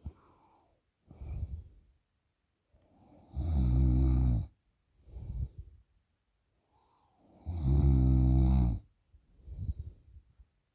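A person snoring heavily while asleep after drinking alcohol: two long, loud, low buzzing snores, each about a second, with shorter breathy puffs between them in a slow, regular breathing rhythm.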